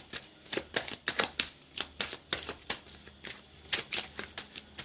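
Tarot deck being shuffled by hand: a quick, irregular run of short card clicks and riffles, about four a second.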